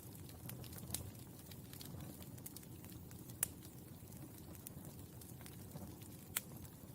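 Burning charcoal crackling: a faint low rustle with scattered sharp pops, the loudest about halfway through and another near the end.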